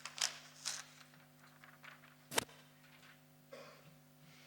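Faint handling noises: a few soft rustles and small clicks, with one sharper click about two and a half seconds in, over a low steady hum.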